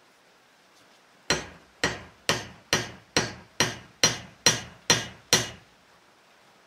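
Ten sharp knocks, about two a second, each with a brief ring, starting about a second in and stopping a second before the end: the butt end of a wooden hatchet handle rapped, head up, against a steel block, the usual way of driving a hatchet head down onto its handle.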